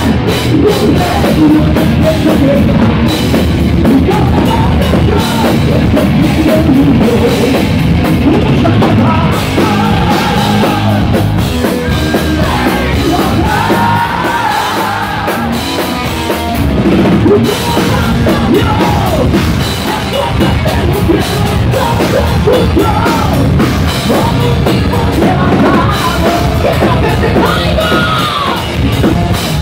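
A heavy metal band playing live and loud: a drum kit and amplified guitars under a singer's voice. The singer's sung line wavers above the band.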